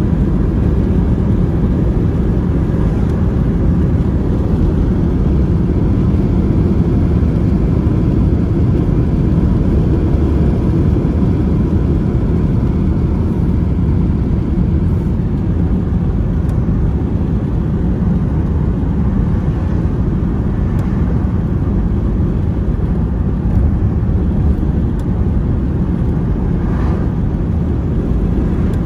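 Steady in-cabin road noise of a car cruising along a highway: an even low rumble of tyres and engine that holds the same level throughout.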